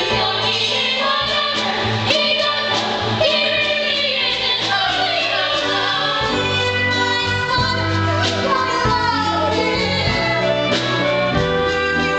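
Musical-theatre song: voices singing over instrumental accompaniment with a steady bass line.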